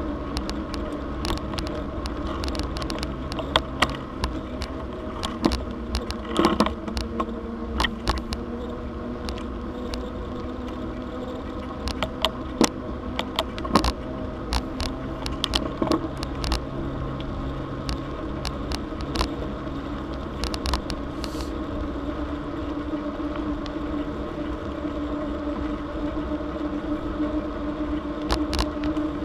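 Bicycle rolling on an asphalt trail: a steady hum and rumble of the tyres on pavement, with frequent small rattles and clicks as the bike goes over bumps.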